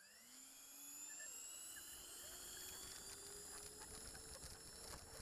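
Twin electric ducted fans of a Freewing AL37 RC jet spooling up as the throttle opens for takeoff, a high whine rising steadily in pitch. From about two seconds in a low rumble builds under it as the wheels roll over the grass.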